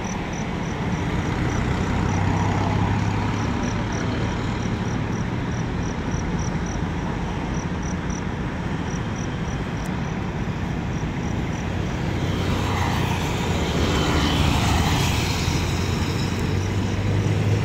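Road traffic on a wide road: the engine hum and tyre noise of cars passing by, rising and falling, with the loudest pass-by near the end.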